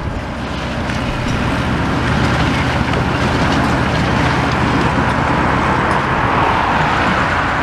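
Road traffic going by: a vehicle passes, its tyre and engine noise swelling in the second half and easing off near the end, over a steady low engine hum.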